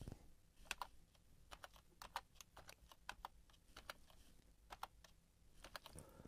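Faint, irregular key presses on a computer keyboard, in short runs of clicks, as lines of code are copied and pasted.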